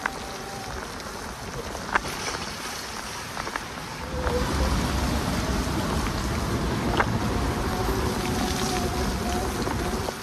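Electric bike motor whirring with a thin steady tone under the hiss of tyres on a rain-soaked path. About four seconds in, a louder low rumble joins, and a few sharp ticks stand out, one near the start, one at about two seconds and one at about seven seconds.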